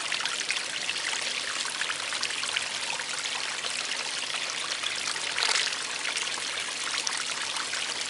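Small garden pond waterfall: water trickling and splashing steadily over stones into the pond, with a brief louder splash about five and a half seconds in.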